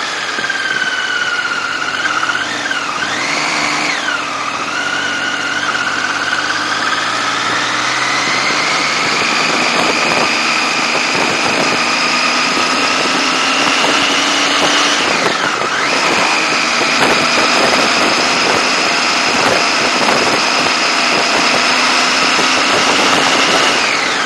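Motorcycle engine running while riding, heard from a camera on the bike, over steady road and wind noise. The engine note climbs slowly through the middle and dips sharply and recovers twice, about two-thirds of the way through and at the end.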